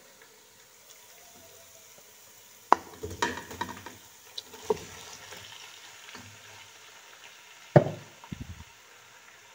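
Raw chicken pieces dropped into a pot of hot oil, sizzling as they land, with knocks of the chicken, plate and spatula against the pot. It begins about three seconds in, and the loudest knock comes near the end.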